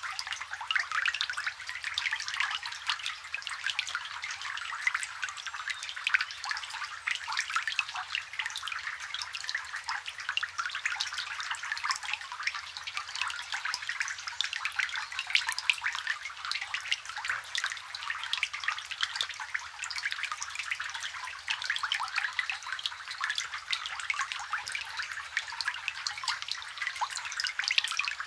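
Rain falling on a water surface, recorded close: a dense, steady patter of many small drops plinking into the water.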